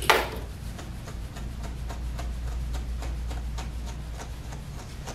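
A grooming comb being worked through a schnauzer's matted coat: faint quick ticks, several a second, as the teeth catch in the hair. There is a sharp knock right at the start, over a steady low hum.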